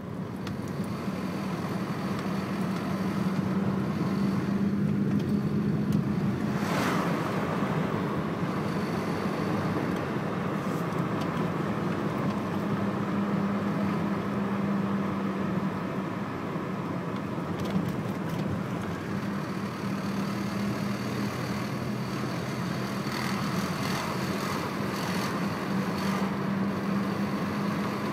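A 1996 VW Golf Mk3 with the 1.4-litre engine being driven, with a steady low rattling, grinding drone like a tractor, which comes in every gear at about 1500 rpm. Two garages have found no cause for it.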